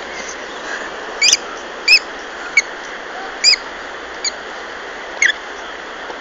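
A small animal giving six short, high-pitched squeaks, roughly one a second, over a steady hiss.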